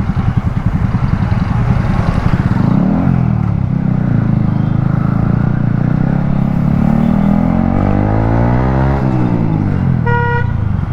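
Motorcycle engine accelerating, its pitch rising steadily for several seconds before dropping sharply near the end, as at a gear change or throttle lift. A short vehicle horn beep follows.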